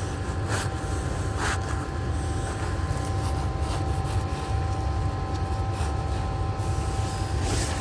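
Steady low machinery drone with a steady whine over it, and a few faint clicks.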